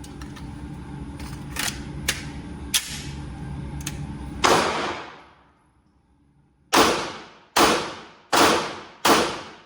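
Loud pistol shots at a shooting range: a single shot about four and a half seconds in, then a string of four shots less than a second apart from about seven seconds in, each with a short echoing tail. Fainter shots from other lanes sound earlier.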